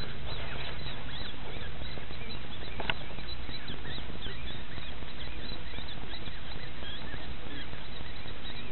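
A newborn fisher kit squeaking: a rapid, constant string of thin, high-pitched little squeaks that rise and fall, over a steady hiss.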